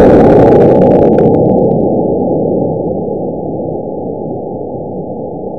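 Roar of a model rocket's motor cluster (two C6 and one D12 motors) fading as the rocket climbs away. The hiss drops out about a second in, leaving a dull rumble that dies away steadily and then cuts off abruptly near the end.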